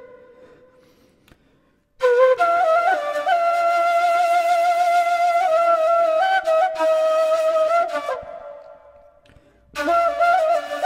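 Kaval, a Turkish end-blown wooden flute, playing a slow free-rhythm uzun hava solo. After a pause of about two seconds, a long held note with small ornamental turns comes in and fades out, and a new phrase starts near the end.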